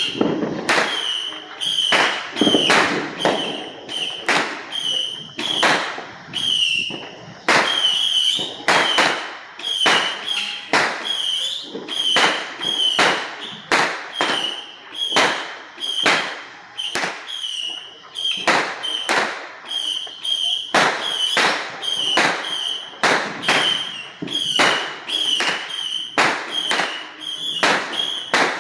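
A long run of sharp firecracker bangs, roughly one to two a second, each followed by a short high squeal.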